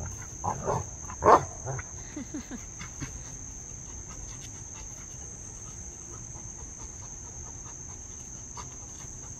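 Rottweiler making a few short noises while nosing and pawing at a rock, the loudest about a second in, over a steady high chirring of insects.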